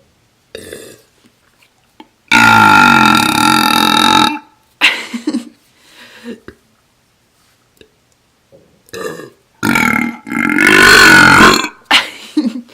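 A woman's air burps, from swallowed air rather than a drink, into a small tube. There are two loud burps of about two seconds each, several seconds apart, with short, quieter sounds between them.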